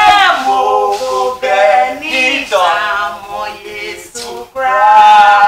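Unaccompanied singing: a lone voice holding notes in short phrases, with no beat or bass under it.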